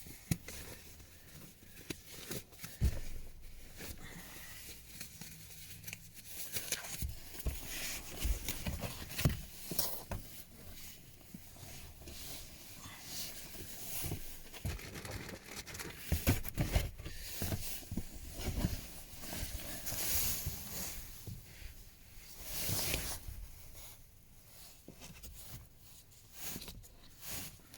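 Plastic trim cover under a car's glove box being pulled loose and handled: scattered clicks, knocks and rustling.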